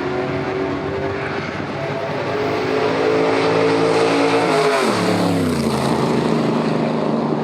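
Car engine running hard, its pitch climbing slowly, then dropping steeply about five seconds in and holding at a lower steady note.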